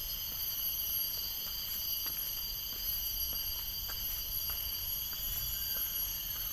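Steady chorus of crickets and other forest insects trilling without a break at several high pitches, with scattered faint ticks.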